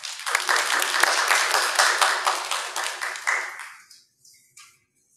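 Congregation applauding, dying away about four seconds in.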